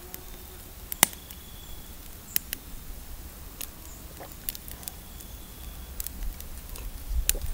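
A few scattered sharp clicks and small knocks, the loudest about a second in, over a faint low outdoor rumble.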